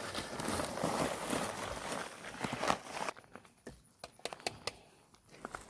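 Dry concrete mix being poured into a fence-post hole, a gritty pattering rush with knocks. About three seconds in it gives way suddenly to quieter scattered taps and knocks.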